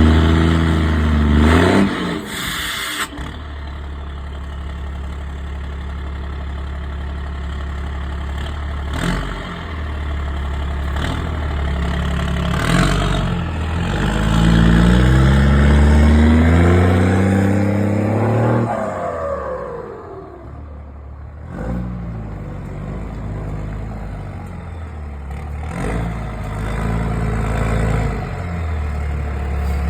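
Ford Cargo 1722 truck's turbo diesel engine, on a straight-through exhaust with a comb fitted in the turbo intake, idling and being revved several times. Its pitch rises and falls, with a longer rev about halfway through that falls back to idle.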